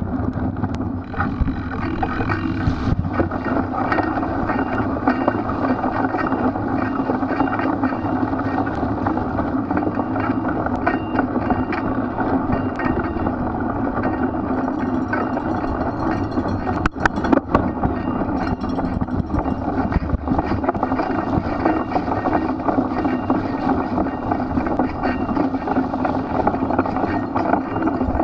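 Specialized Crux Elite X1 cyclocross bike ridden over a muddy race course, a steady rumble and rattle of tyres and drivetrain with sharp knocks from bumps, several together about 17 seconds in.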